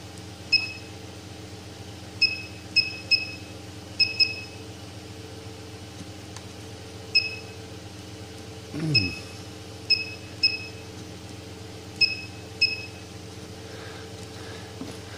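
About a dozen short, high electronic beeps from the Lerdge S 3D-printer board's touchscreen buzzer, irregularly spaced, one for each finger tap on the screen. Under them runs a steady hum, and about nine seconds in a short low sound falls in pitch.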